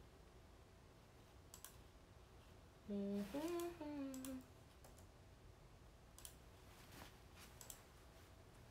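Quiet room tone with a few faint scattered clicks, and a young woman briefly humming a short phrase that rises then falls in pitch, about three seconds in.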